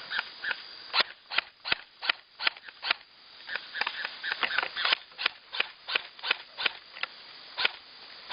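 Airsoft guns firing single shots: a long irregular run of sharp snaps, about two or three a second.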